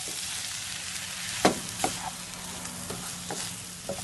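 Chicken stir-fry in ketchup sauce sizzling in a pan while it is stirred, a utensil knocking against the pan a few times.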